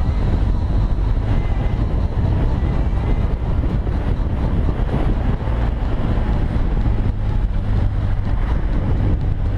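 BMW R1200 boxer-twin motorcycle engine running at a steady cruise, with wind noise on the helmet-mounted microphone.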